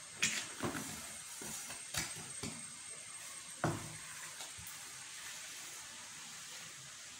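A handful of sharp taps and clicks of small aquarium-type stone grains and a hand on a granite floor as loose grains are brushed and knocked off a freshly glued card border, with a faint gritty rustle between; the clicks come mostly in the first four seconds.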